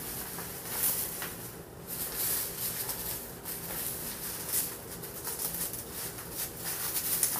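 Rustling and crinkling of a plastic shampoo cape being unfolded, swung around the shoulders and fastened at the neck, in irregular bursts of handling.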